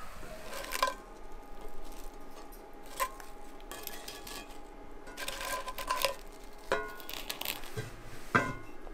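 Cast iron skillets and toasted bread handled in a kitchen: a string of separate clinks and knocks, a few with a short metallic ring, and a quick cluster of clicks about halfway through as crisp bread slices are set into a skillet.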